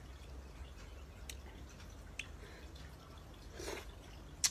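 Wet mouth clicks and lip smacks of someone eating mango, a few separate sharp clicks with a short wetter smack about three and a half seconds in and the loudest click near the end, over a low steady hum.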